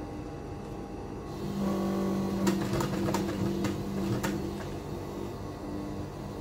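Industrial Protex sewing machine stitching through thick bag leather. Its motor hums steadily for about three and a half seconds in the middle, with a few sharp clicks as it stitches, then stops.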